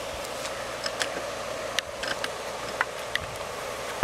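Several light, sharp clicks, irregularly spaced, over a steady background hiss.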